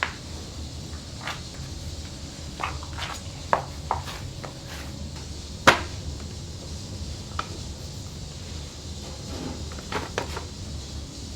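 Kitchen work sounds: scattered knocks and clinks of utensils and dishes, one sharp knock about halfway through, over a steady low hum.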